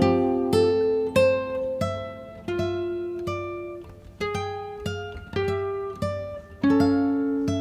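Background music on acoustic guitar: single plucked notes and chords at an unhurried pace, each ringing out and fading before the next.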